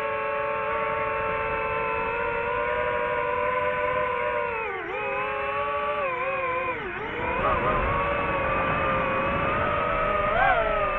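DJI FPV drone's motors and propellers whining at a steady pitch, dipping sharply twice, about five and seven seconds in, as the throttle is cut and opened again, then wavering and briefly rising near the end.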